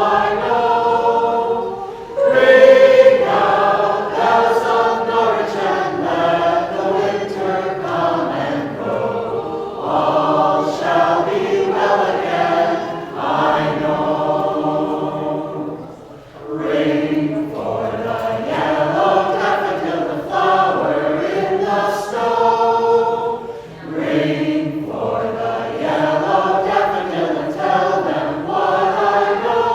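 A small choir singing a song together in long sustained phrases, with brief breaks between phrases about two, sixteen and twenty-four seconds in.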